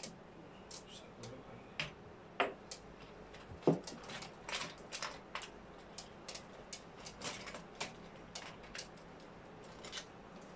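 Small metal air-rifle parts clicking and clinking as they are handled and set down on a wooden table: irregular light taps, with a few sharper knocks in the first four seconds.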